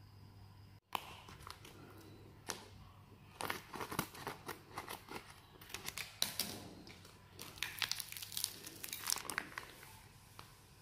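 Plastic food pouch of frozen rice soup crinkling in the hands as it is opened and folded back, in irregular bursts of rustling from about a second in, busiest in the middle and thinning near the end.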